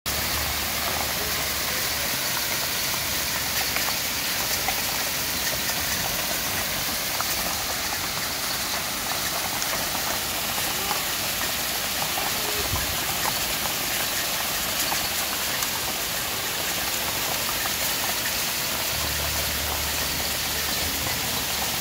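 Heavy hail and rain falling steadily on gravel and grass: a dense, even hiss peppered with the small ticks of hailstones landing.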